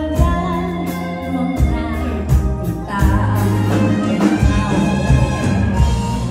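Live band music with a steady drum beat and a sustained bass line.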